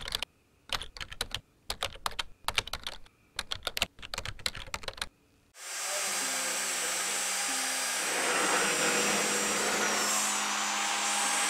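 Typing on a computer keyboard: rapid clicking in short flurries. A little past halfway it cuts to a power drill running steadily with its bit in a steel tube, its pitch dipping briefly near the end.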